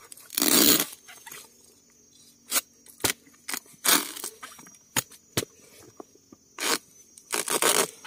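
Bamboo and undergrowth crunching and tearing in about ten short, irregular cracks and rips, one longer near the start and another near the end.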